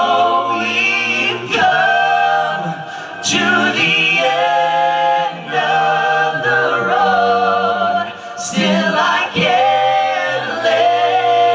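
Male a cappella group singing in close harmony through microphones, with a sung bass line held low underneath, during a boy-band medley.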